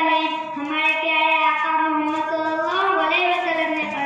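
A girl singing into a microphone, drawing out long held notes that bend gently in pitch.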